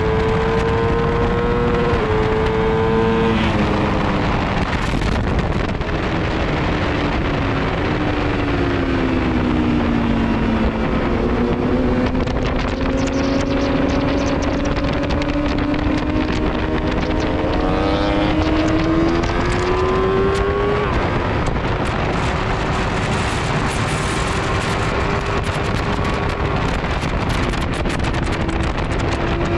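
Motorcycle engine running hard at track speed, heard from onboard with wind rushing over the microphone. The engine note steps down through gear changes early on, sinks as the bike slows into a corner around the middle, then climbs slowly as it accelerates out, with another shift about two-thirds of the way through.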